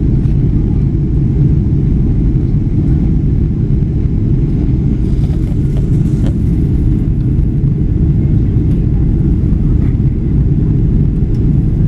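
Steady low drone of a jet airliner's engines and rushing air, heard inside the passenger cabin during the climb after takeoff.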